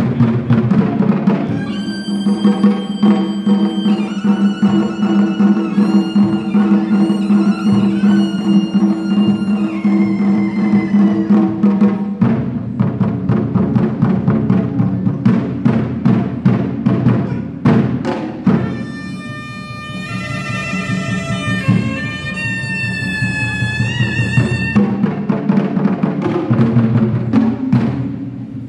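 Live Chinese folk ensemble music. Drums beat a steady fast rhythm under long held melody notes and plucked pipa and ruan. Around twenty seconds in, a high wavering melody line comes in over the drums.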